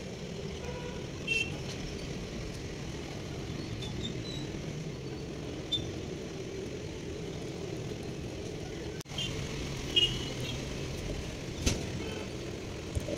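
Steady low background rumble, with a few short, sharp high-pitched sounds scattered through it, the loudest about ten seconds in.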